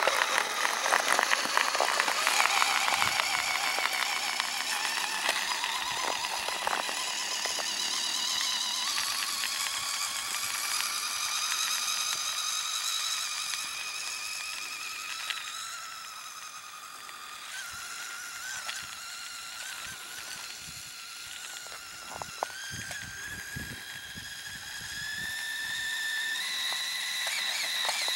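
Homemade radio-controlled snowmobile built from Traxxas parts, its motor running with a high-pitched whine that shifts up and down in pitch as the throttle changes, over a steady hiss. It fades somewhat about halfway through and swells again near the end.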